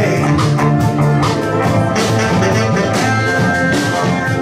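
Live band playing an instrumental passage without vocals: electric bass carrying a low line under drums keeping a steady beat.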